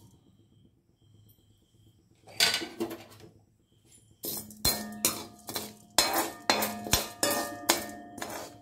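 Steel spoon scraping and clinking against a black metal kadai while stirring urad dal frying in oil. One scrape comes about two seconds in, then from about four seconds in a quick run of strokes, about two a second, each with a short metallic ring.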